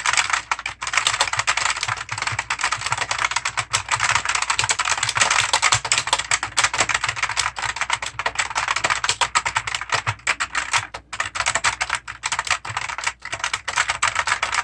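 Fast continuous typing on an Electroman mechanical gaming keyboard with clicky blue switches, taken for Outemu blues: a dense run of sharp key clicks that stops abruptly at the end. The sound is tough yet well balanced.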